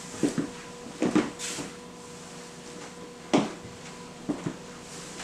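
Several separate clunks and knocks of coffee mugs and kitchenware being handled and set down on a table, over a faint steady hum.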